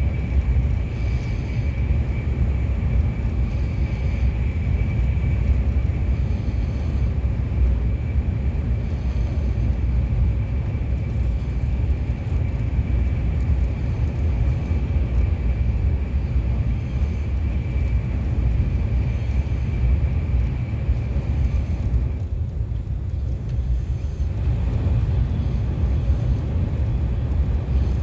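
KTX high-speed train running at speed, heard from inside the passenger cabin: a steady deep rumble with a faint high whine that stops about three-quarters of the way through.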